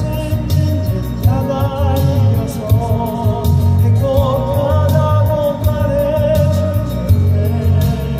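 Two men singing a slow ballad in harmony, with vibrato, over backing music with a steady beat and bass; the voices come in about a second in.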